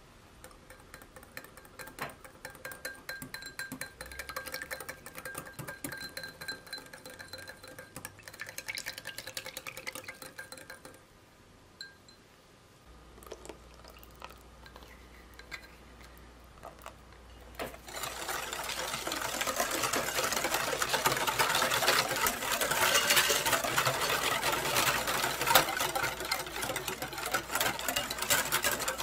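Stainless wire whisk beating liquid batter in a glass mixing bowl. At first the strokes are lighter clicks, with the wires ringing against the glass. About two-thirds of the way through, steady, fast, vigorous whisking starts and is much louder.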